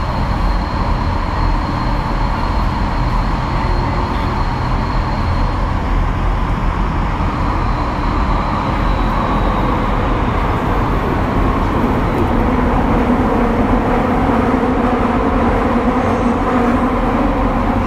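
Kyoto Municipal Subway Tozai Line 50 series train running through the tunnel, heard from inside the car: a loud steady rumble of wheels and running gear with a faint high whine. The whine fades out about five seconds in and returns a couple of seconds later.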